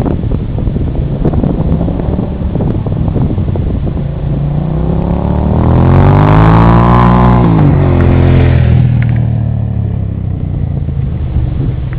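Suzuki SV650's V-twin engine accelerating hard: its pitch climbs steadily for about three seconds from around four seconds in, then drops back down, over rumbling wind noise.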